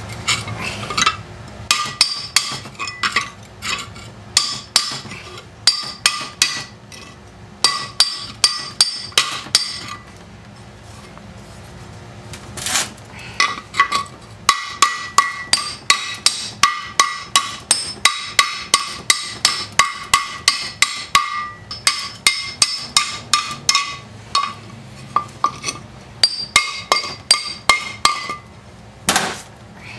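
Hammer blows on an outboard propeller blade held on a steel post, in quick runs of about three or four strikes a second with short pauses, each strike ringing with a high metallic ping. A single heavier blow comes near the end.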